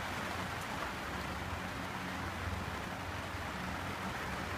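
Steady hiss of rain falling on a sailboat's cockpit and its clear enclosure, with a low steady hum underneath.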